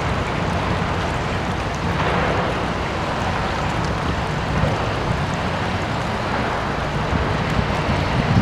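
Boulder fountain: water welling up from the top of a large rock and running down its sides into the wet basin around it, a steady splashing rush, with a low rumble of wind on the microphone underneath.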